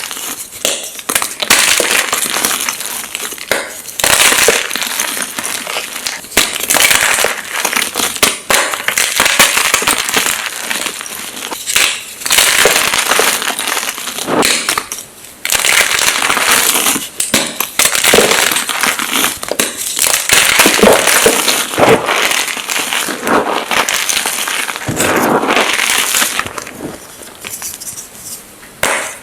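Jumbo blocks of magnesium gym chalk being crushed and crumbled: a dense, continuous run of crunching and crackling, broken by a few short pauses.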